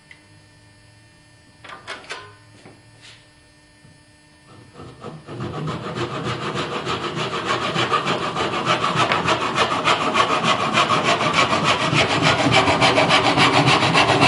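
A hand saw cutting through a round wooden dowel with fast, steady back-and-forth strokes. It starts about five seconds in, after a few light knocks, and grows louder as it goes on.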